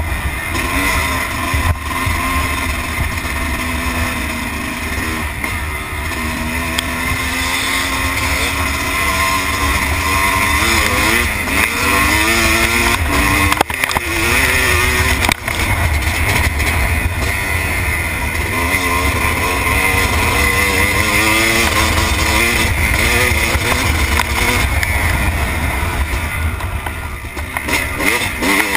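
Dirt bike engine heard close up from the bike itself, its revs rising and falling as the throttle is worked over rough track, over a heavy steady low rumble.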